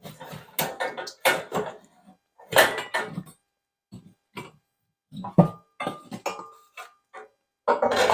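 Irregular metallic clanks and knocks from copper pipe and hand tools being worked and handled, a few of them ringing briefly.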